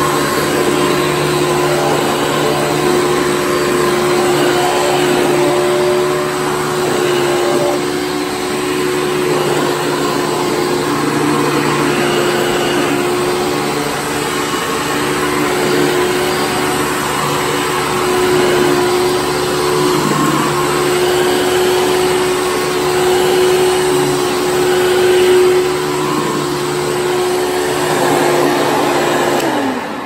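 Hoover U5117-900 upright vacuum cleaner, with an Elite-style motor and brush roll, running steadily as it is pushed over the floor, with a little rubbing that comes from its brush plate being in poor shape. It is switched off near the end, the motor pitch falling as it winds down.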